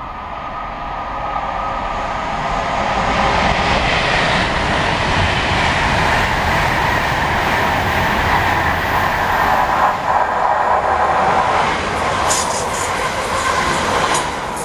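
Electric passenger trains running through the station at speed: a Virgin Pendolino on the far line and a London Midland electric multiple unit passing close on the near line near the end. The noise of wheels on rail builds over the first couple of seconds, stays loud, and picks up sharp high rattles in the last few seconds as the near train goes by.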